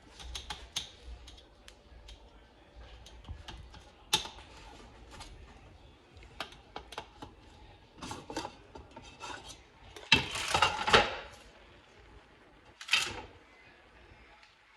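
Kitchen handling sounds: dishes and utensils clinking, knocking and scraping, in scattered sharp clicks. A louder noisy rush about ten seconds in lasts roughly a second, and a shorter one follows near thirteen seconds.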